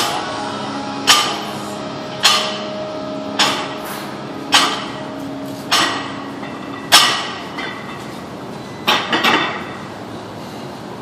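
Iron weight plates clanking on a loaded barbell during power curls, one sharp metallic clank with each rep, about one a second, seven times. A few seconds later comes a quick cluster of clanks as the bar is set down.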